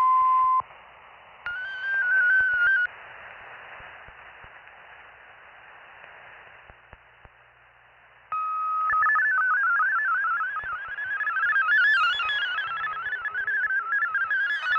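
Shortwave receiver audio of a digital text-mode data broadcast. A short steady beep, then a second short tone, then a few seconds of band static. Near the end a steady tone starts a fast warbling sequence of shifting data tones.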